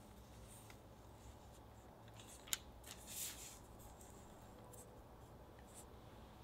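Faint rustling of paper and soft cookie dough as fingers roll a dough triangle into a croissant shape, with one sharp tick about two and a half seconds in and a brief louder rustle just after.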